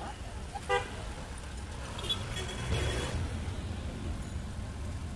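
Busy street noise with a steady low traffic rumble. A short, loud, pitched toot sounds less than a second in.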